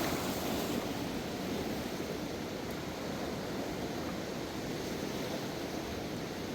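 A river swollen in flood, rushing water making a steady noise with no let-up.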